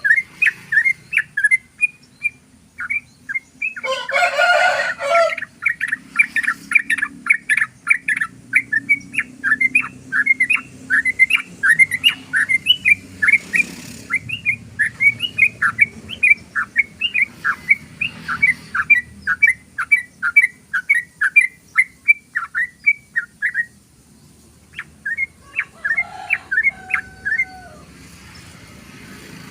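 Yellow-vented bulbul (trucukan) singing a long rapid run of short chirping notes, about three a second, with one harsher, louder call about four seconds in. The run breaks off near the end, then resumes briefly with a few notes and a lower whistle.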